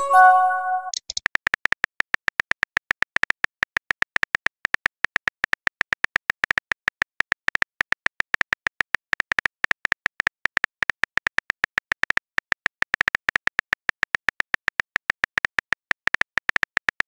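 Simulated phone keyboard clicks from a texting-story chat app: rapid, even clicking, about ten a second, the sound of messages being typed out. It opens with a short chime of a few stacked tones, a message pop.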